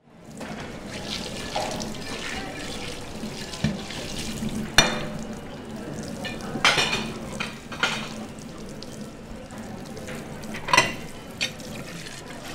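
Tap water running into a stainless-steel sink as plates are washed by hand, with several sharp clinks and knocks of crockery against the sink.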